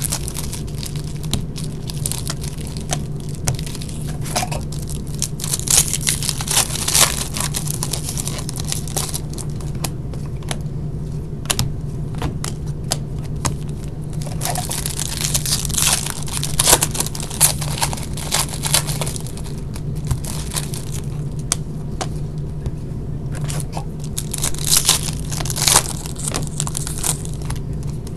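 Foil trading-card pack wrappers being torn open and crinkled while the cards are handled, in irregular crackling rustles over a steady low hum.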